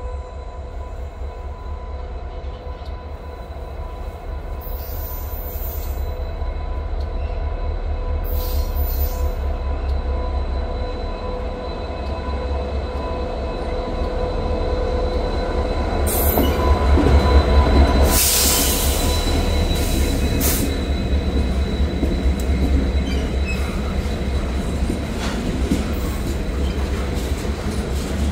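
An EMD GP60 diesel locomotive, with its 16-cylinder two-stroke engine, approaches with a deep low rumble that builds, is loudest a little past halfway as it passes, then gives way to loaded freight cars rolling by on steel wheels. A thin steady squeal from the wheels runs underneath.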